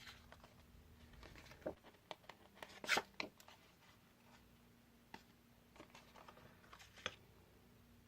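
Paper and small craft tools being handled at a desk: scattered soft clicks and rustles, with a short cluster of louder clicks about three seconds in.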